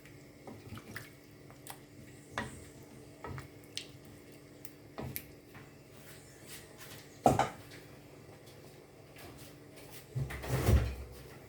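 Kitchen handling noises: scattered light clicks and knocks, one sharp knock about seven seconds in, and a louder clatter near the end, like a cupboard or containers being handled.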